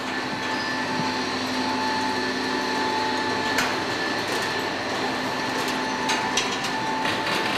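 Jean Tinguely's walk-in kinetic sculpture Grosse Méta Maxi-Maxi Utopia running: a steady mechanical whir from its motors and turning wheels, with held hum notes at several pitches and a few clicks and clanks, about halfway through and near the end.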